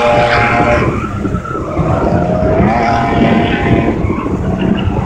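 A car engine revving hard with tyres skidding on tarmac as the car is driven through a slalom. The engine note drops away about a second in and climbs again past the middle.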